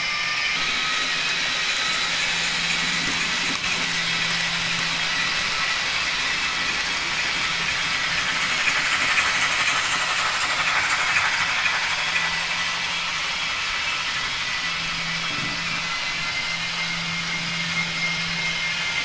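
Model trains running on the layout track: a steady high-pitched electric motor whine over the rattle and hiss of small wheels on the rails, with a low hum that comes and goes.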